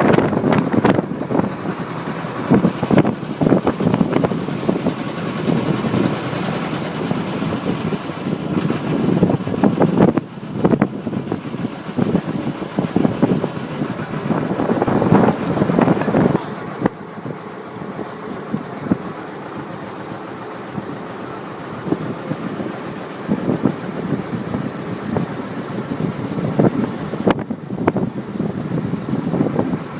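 Tour boat's motor running, with wind and water noise; the sound changes abruptly a few times.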